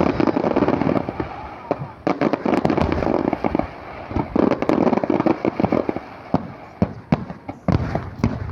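Aerial fireworks bursting in rapid volleys, with dense crackling, in three waves of many bangs, then a few separate bangs near the end.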